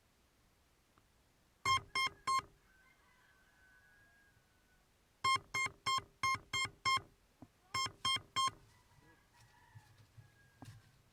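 Short pitched electronic beeps in quick runs, about three a second: three beeps, then six, then a few more. Faint thin tones sound in the gaps.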